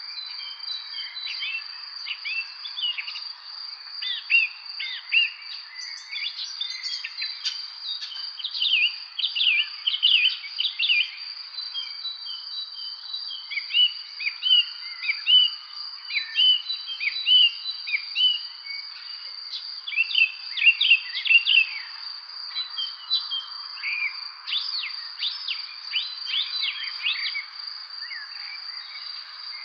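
Several songbirds chirping and calling in quick, overlapping flurries over a steady high-pitched trill; the chirping thickens and thins, busiest in the middle and again near the end.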